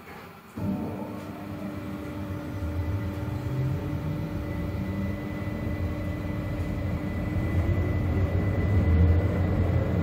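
Tatra KTNF6 articulated tram, heard from inside, setting off about half a second in and accelerating: rumble of the wheels on the rails growing louder under a steady whine from its electrical equipment, with a rising whine near the end as it gathers speed.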